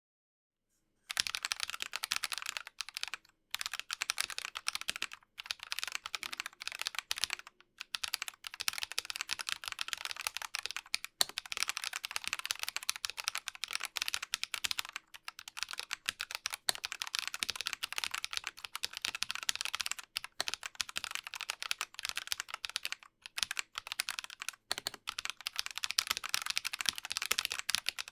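Fast continuous typing on a Dygma Raise split mechanical keyboard with Drop Holy Panda tactile switches, lubed with Krytox 205g0 and filmed: a dense stream of keystroke clacks in runs, with brief pauses between bursts. The typing starts about a second in.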